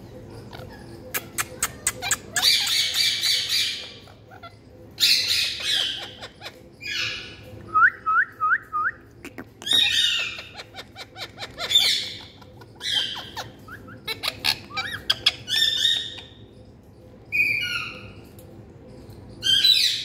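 Indian ringneck parakeets squawking in repeated harsh calls, each about a second long, with bursts of sharp clicks between them and a quick run of four short chirps about eight seconds in.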